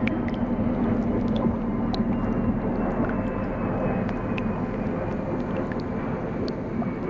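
Twin-engine jet airliner flying overhead: a steady jet engine roar with a faint high whine above it.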